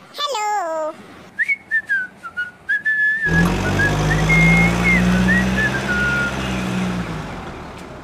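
Dubbed cartoon sound effects: a short descending wobbly tone, then a whistled tune with a few clicks, joined about three seconds in by a loud, low vehicle-engine rumble that fades out near seven seconds.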